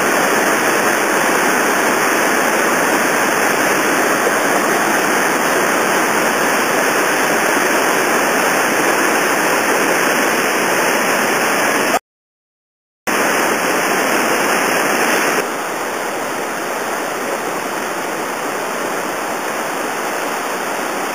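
Whitewater rapid rushing over a steep boulder drop, a steady roar of churning water. It cuts out completely for about a second around twelve seconds in, then comes back, and is a little quieter from about fifteen seconds on.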